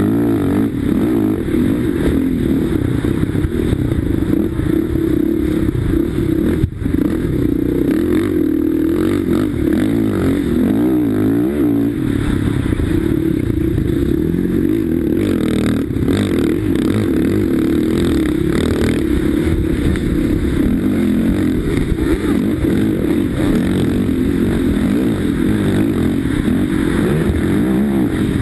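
Sidecarcross outfit's motorcycle engine running hard at race pace, revving up and down as it is driven around the dirt track. A single sharp knock sounds about seven seconds in.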